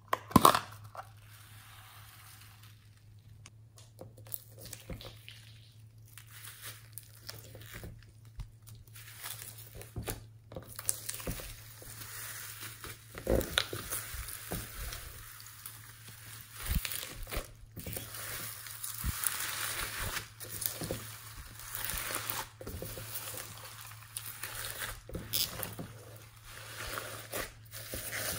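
A plastic box lid snaps open with one sharp click. Then, from about twelve seconds in, hands squeeze and knead slime full of foam beads, a dense crackling with many small pops, over a faint steady low hum.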